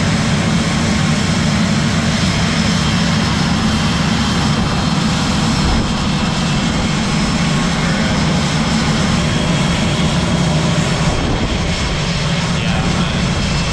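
Steady, loud machinery drone from a de-icing truck, overlaid by the hiss of de-icing fluid spraying from a hand-held nozzle onto an aircraft's wings and tail.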